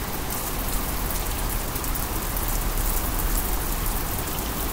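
Water rushing and spraying steadily from a burst water pipe, a dense even hiss with a low rumble underneath.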